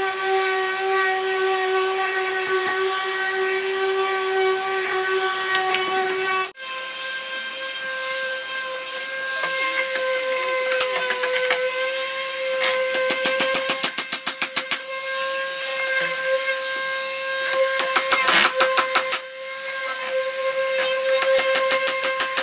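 Electric woodworking power tool motor running at a steady whine. About six and a half seconds in it cuts to a second, higher-pitched motor whine, broken later by bursts of rapid clatter.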